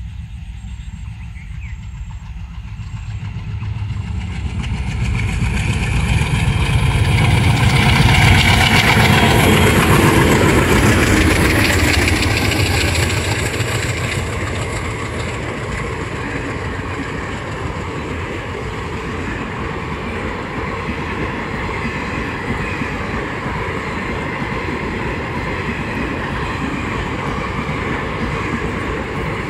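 Two coupled ALCO WDM3D diesel locomotives under power approach and pass, their engines loudest about eight to ten seconds in. A long rake of passenger coaches follows, rolling by with steady wheel-on-rail noise.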